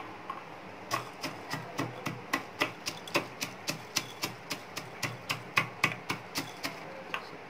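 Pestle pounding fried dals, cumin seeds and black peppercorns in a small metal mortar, crushing them to powder. The strikes come steadily, about three to four a second, starting about a second in and stopping near the end.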